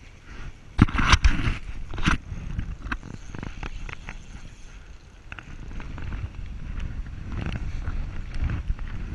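A cluster of sharp knocks and scraping about a second in, then a steady low rumble with scattered small clicks. This is handling noise on a chest-mounted camera while a spinning rod and reel are worked during a fish fight.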